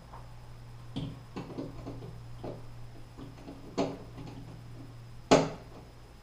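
Scattered light clicks and knocks from handling a metal towel-bar bracket and a screwdriver against it, after its hidden set screw has been tightened. The loudest knock comes about five seconds in, over a steady low hum.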